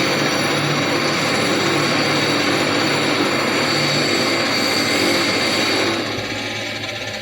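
Metal lathe running steadily, a dense machining noise with several steady whining tones; about six seconds in it drops in level and thins out.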